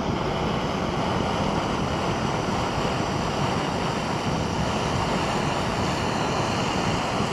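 Steady hiss of an MSR gas-canister backpacking stove burning under a stainless percolator coffee pot.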